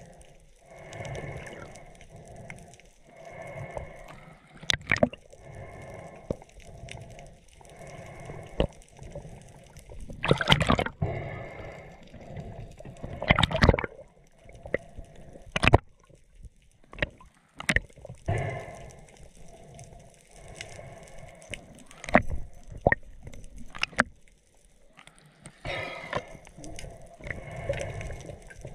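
Underwater water noise against the camera housing: uneven gurgling and rushing swells, two louder surges in the middle, and scattered sharp clicks and knocks.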